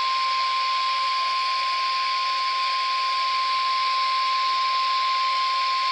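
Weather radio's warning alarm tone, a single long steady tone of about 1 kHz, over radio hiss: the alert that a severe weather warning message is about to be broadcast.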